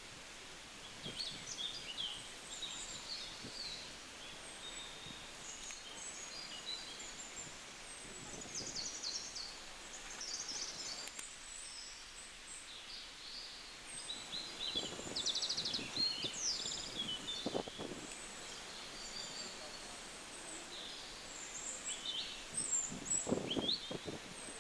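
Several small birds chirping and trilling in quick, scattered calls over a steady outdoor background hiss, with a few louder low sounds in the second half.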